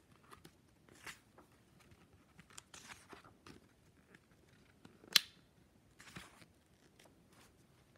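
Pages of a hardcover book being handled and turned by hand: faint paper rustles and small clicks, with one sharp click about five seconds in.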